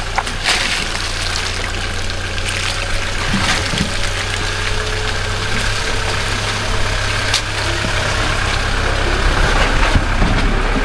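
Toyota Hilux engine running steadily, a low hum under a wash of road and wind noise, with a few faint clicks.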